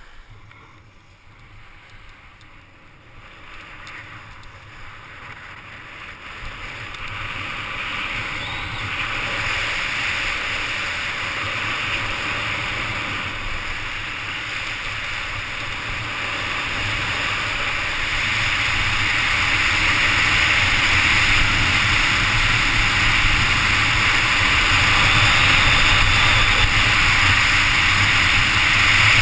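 Rushing wind on a helmet-mounted camera's microphone, with skis hissing over the snow during a downhill run; the noise grows steadily louder as the skier picks up speed.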